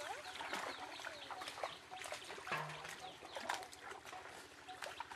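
Fowl and birds calling in many short clucks and chirps, over light splashing of water.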